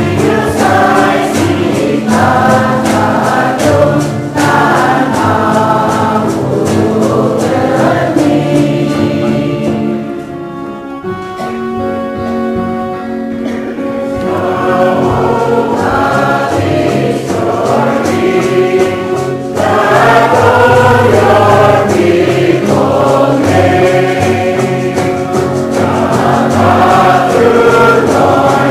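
Background music: a choir singing a gospel-style Christian song. About ten seconds in it drops to a softer stretch of held notes, then the full singing returns.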